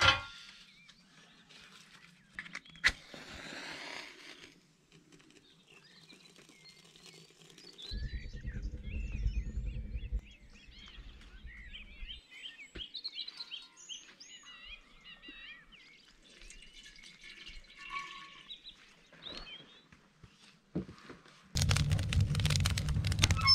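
Small birds chirping and calling, many short rising and falling notes, with a brief low rumble about eight seconds in. Near the end a loud crackling noise starts suddenly as the open firebox of a wood stove is fed a log.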